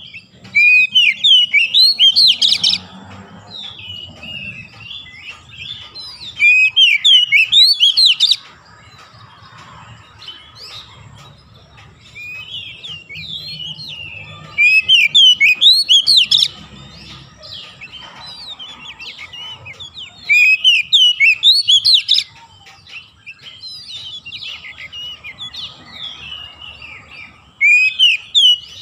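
Oriental magpie-robin in full song: five loud bursts of varied, quick whistled phrases, each lasting about two seconds, with softer warbling in between.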